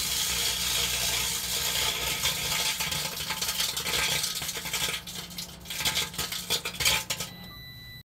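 Microwave oven running with seven CDs inside, their metal layer arcing: a dense electric crackling and snapping over the oven's steady hum. After about five seconds the sparks come as sharper, more separate snaps, and a high steady tone comes in near the end.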